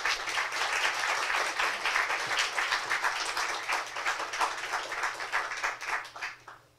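Audience applauding to welcome a speaker, a dense patter of many hands clapping that tapers off near the end.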